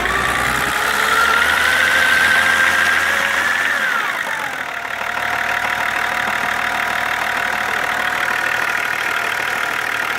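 An engine revved: its note climbs for about four seconds, falls back quickly, then settles into a steady idle. The owner hears no knock from it any more.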